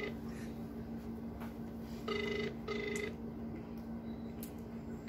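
Phone ringback tone played through a mobile phone's speaker while a call is being placed: pairs of short beeps about three seconds apart. A steady low hum runs underneath.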